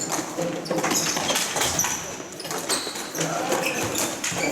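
Ball hockey play: stick and ball knocks over and over, with brief shouts from players.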